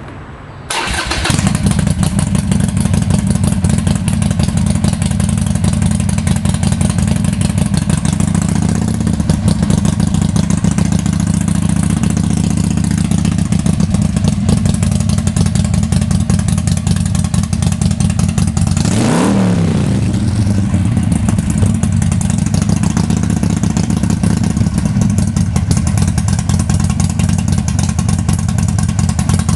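2007 Harley-Davidson Nightster's 1200 cc V-twin breathing through Rinehart slip-on mufflers. It starts about a second in and settles into a steady, loud idle. Near the middle it is blipped once, the revs rising and falling back to idle.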